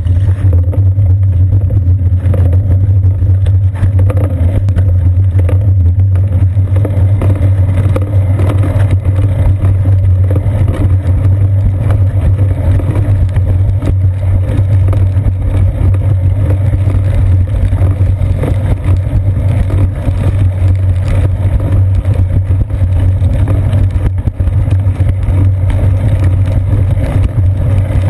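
Loud, steady low rumble of wind and road vibration picked up by a seat-post-mounted GoPro Hero 2 in its housing as the bicycle rides along wet pavement.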